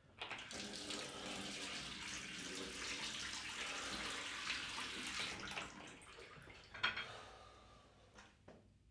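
Water running from a bathroom tap into a sink while a man washes his face with his hands. It fades out about two thirds of the way through, with one short sharp sound near the end.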